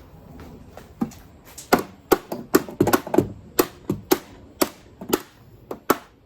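A quick, irregular series of sharp clicks, about two to three a second, beginning about a second in.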